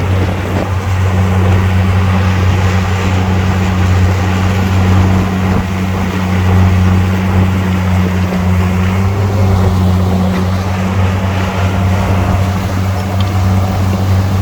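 Heavy diesel engine running steadily at a constant speed, a deep even hum with no change in pitch.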